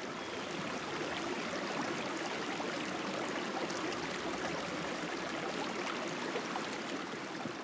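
Steady rain falling: a constant even hiss with faint scattered drop ticks.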